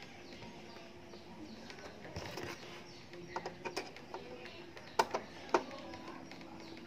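Hands working on the plastic housing of an Epson L120 printer: a few light plastic clicks and knocks, the two loudest about five seconds in. A faint low tone comes and goes behind them.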